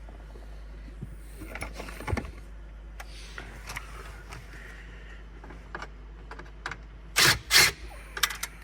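Scattered small clicks and knocks of a screwdriver and plastic dashboard trim being handled while T20 Torx screws are taken out, with two louder short clattering bursts about seven seconds in.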